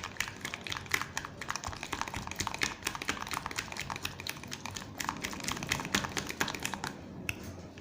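A utensil stirring a thick mix of shampoo and sugar in a container, with rapid, irregular clicks and taps against the container's sides that thin out near the end.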